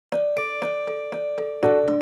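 Background music: a keyboard playing a repeating pattern of notes, about four a second, with lower notes coming in near the end.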